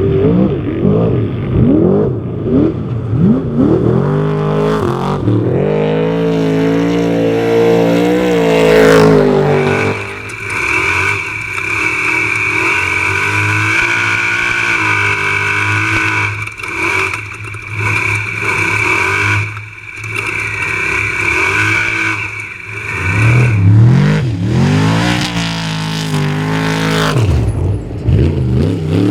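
Off-road race truck engines revving hard and passing, the pitch sweeping up and down. In the middle stretch a high-pitched engine note holds steady for about thirteen seconds, then the revving and passes return.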